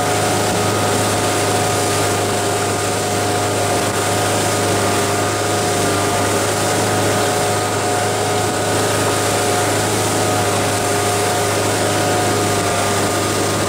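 Tow boat's engine running steadily at speed, a constant drone with a low hum and several steady tones, over the rushing hiss of water and wind.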